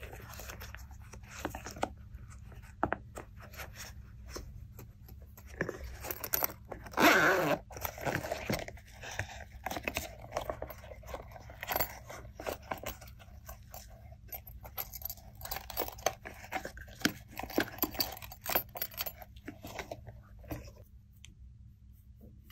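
A silicone pop-it bag being handled and small plastic beads and sprinkles tipped out of it into a glass dish: a stream of small clicks and crackles, with one louder rasp about seven seconds in.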